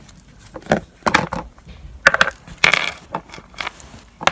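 Slime mixture of body wash, foam bath and salt being stirred hard in a bowl: an irregular run of short, noisy stirring strokes.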